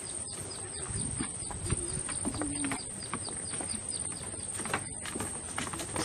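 Footsteps knocking on a wooden plank boardwalk, with birds chirping in a quick run of short, repeated calls over the first couple of seconds.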